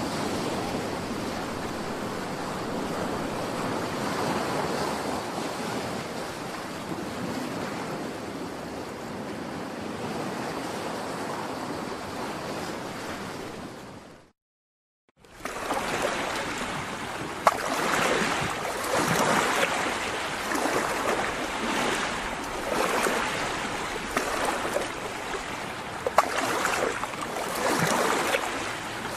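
Recorded sea sound of ocean waves: a steady wash of surf cuts out about halfway through for a second of silence. It then resumes as a rougher recording that swells and falls every couple of seconds, with a few sharp clicks.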